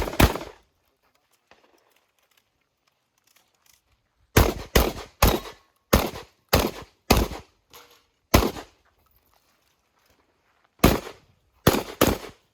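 Beretta 1301 Comp Pro semi-automatic 12-gauge shotgun fired in quick strings, shots about half a second apart: two right at the start, then after a pause of about four seconds a run of about seven shots, another short pause, and a fast run of four more near the end.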